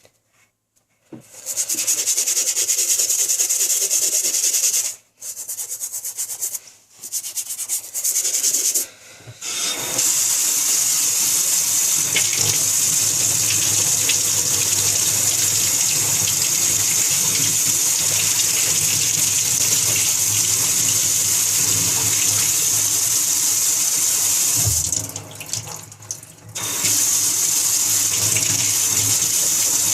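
Sneaker sole scrubbed with a toothbrush in short bouts, then from about ten seconds in a tap running steadily into a sink as the bleach solution is rinsed off, with a brief break near the end.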